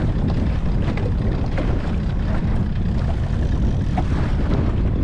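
Small aluminium fishing boat's outboard motor running steadily under way, with wind rumbling on the microphone.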